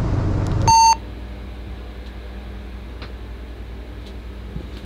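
Boat engine running steadily, then cut off under a second in by one short, loud electronic beep, after which only a low steady hum remains.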